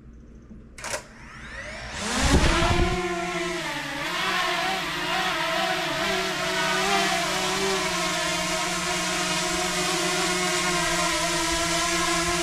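DJI Mini 2 quadcopter's four propeller motors spinning up with a rising whine about two seconds in, after a short click, then the drone hovering with a steady buzz of several tones that waver slightly.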